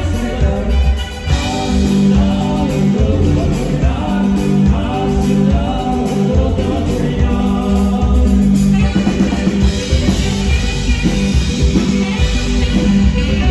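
Live band music with a saxophone lead over bass and drums.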